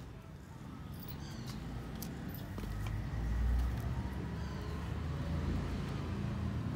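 Tabby kitten purring as its head is stroked: a steady, low, fast-pulsing rumble, a little louder around the middle.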